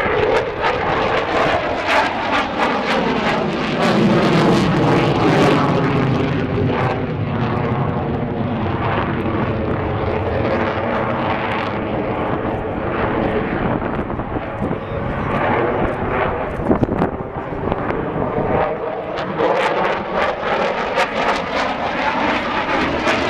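Jet fighter flying overhead, its engine noise running continuously and sweeping in pitch as the aircraft passes and turns, with a crackling edge.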